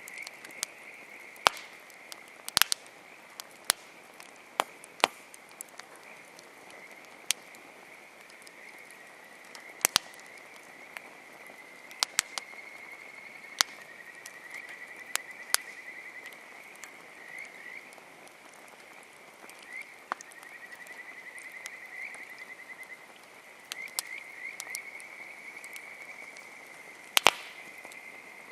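Campfire wood crackling, with sharp, irregular pops and snaps. Behind it runs a steady, high-pitched trilling chorus of frogs.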